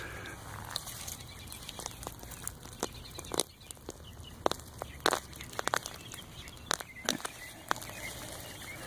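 A leek being pulled up out of garden soil: irregular crackles, snaps and rustles of roots and soil giving way.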